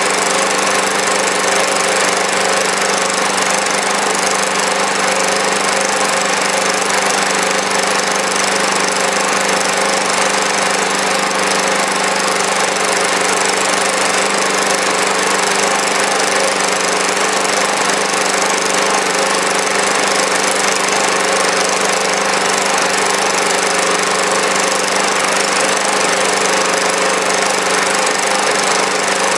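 Small engine in standard trim, without HHO, running steadily under a constant electrical load of about 350 W, at a fixed set RPM.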